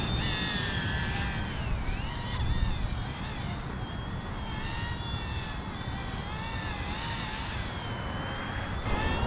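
Small electric RC helicopter flying, its motor and rotors making a whine that wavers up and down in pitch as the throttle changes, with gusty wind rumbling on the microphone.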